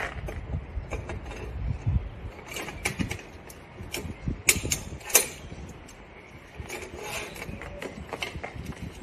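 Long lug wrench straining on a car's wheel nut: metallic creaks and clicks, with two sharp clicks about half a second apart near the middle.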